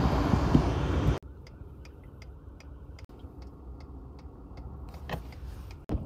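Road and engine noise heard inside a car cabin while driving on a snowy road, cutting off abruptly about a second in. After that, a car's turn-signal indicator clicks steadily, about two to three clicks a second, over a low idle hum.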